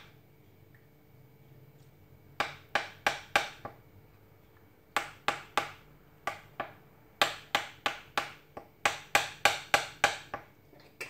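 Metal spoon clinking against the side of a white ceramic bowl while stirring a sauce in thick barley porridge: sharp clicks in small groups, starting about two seconds in and coming faster over the last few seconds.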